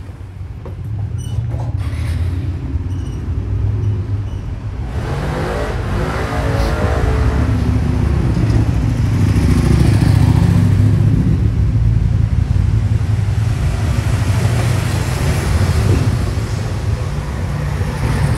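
Motor vehicle engines running close by on a street, with an engine note gliding up and down about five to seven seconds in and the sound loudest about ten seconds in.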